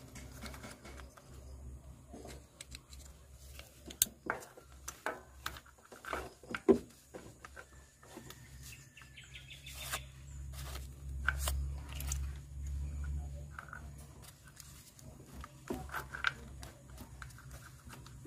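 Scattered clicks and light knocks as spark plugs and ignition-coil connectors are handled and plugged together, over a low steady hum.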